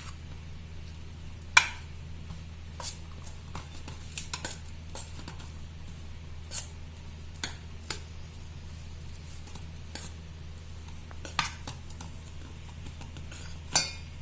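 A spoon clinking and scraping against a bowl while mixing and mashing a soft rice mixture, in irregular knocks, the sharpest about a second and a half in and again near the end. A steady low hum runs underneath.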